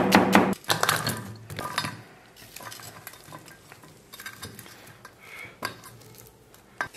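Cleaver chopping onion on a wooden chopping block, then scraping the sliced onion into a stainless steel bowl, with scattered light knocks and clinks. Background music with a beat plays for about the first half second, then stops.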